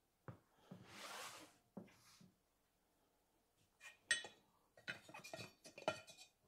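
Hand tools working the old rubber valve stem out of a steel mower wheel rim: a short scraping rub, then a run of sharp metallic clicks and clinks in the last few seconds.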